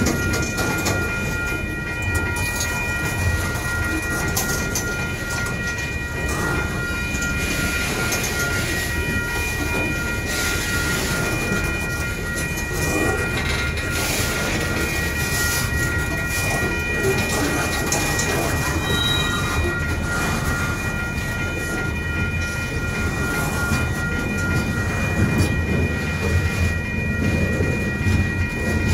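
Freight cars of a manifest train rolling steadily past: a continuous rumble and rattle of wheels on the track, with clickety-clack over the rail joints. Steady high-pitched tones ring over it throughout, and the lowest of them drops out near the end.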